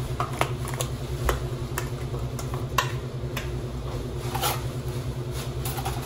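Scattered light clicks and taps of kitchen utensils against a bowl and dishes, about a dozen at irregular intervals, over a steady low hum.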